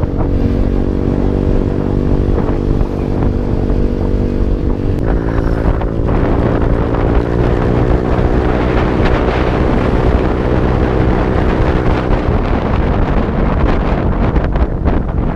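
Motorcycle engine running at a steady speed, with wind noise on the microphone that grows stronger about five seconds in.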